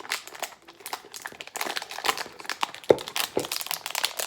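Toy blind-bag packaging crinkling and crackling steadily as it is handled and twisted, with a sharper knock about three seconds in.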